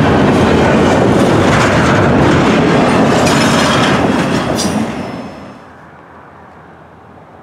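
Norfolk Southern double-stack intermodal train rolling past close by, its container well cars' wheels running loud and steady over the rails, with a short sharp high note just before the noise falls away about five seconds in as the last car passes. After that only a low, steady background remains.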